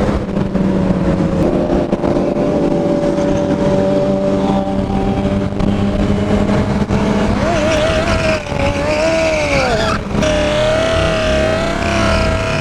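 Yamaha FZ-09 (MT-09) inline three-cylinder engine running at a steady riding speed. About two-thirds of the way through its pitch wavers up and down as the revs change, then it settles back to a steady note.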